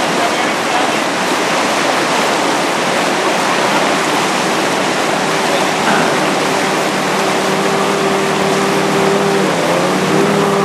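Steady rush of river rapids, with the engine drone of an approaching inflatable power dinghy's outboard motor coming up over it from about halfway through. The engine note dips in pitch near the end and then picks up again.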